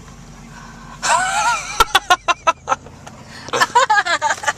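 A high-pitched voice squealing and laughing in short quick bursts, over the steady low hum of a vehicle cabin.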